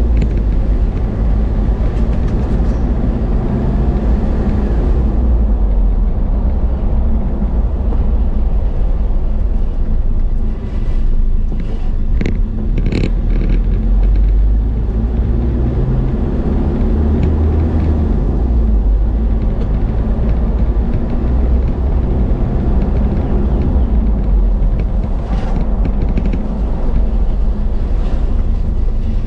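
Car driving on a paved road: a steady low engine and tyre rumble, with a few brief knocks or clicks near the middle.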